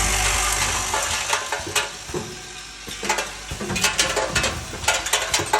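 A vibratory bowl feeder's steady hum drops away about half a second in, leaving irregular clicking and rattling of small metal screws moving along the feeder and dropping through the counter.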